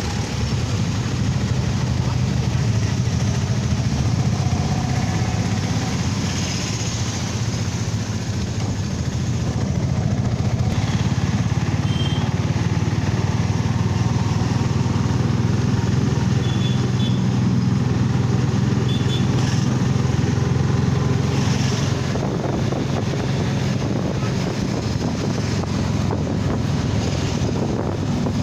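A vehicle's engine running steadily with road and wind noise while driving. A few brief high beeps sound about midway through.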